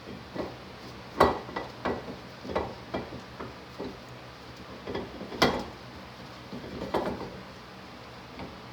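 Metal C-clamps clanking and clicking as they are handled and set on a dual-piston brake caliper to press its pistons back. It is an irregular run of sharp knocks, the loudest about a second in and again about five and a half seconds in.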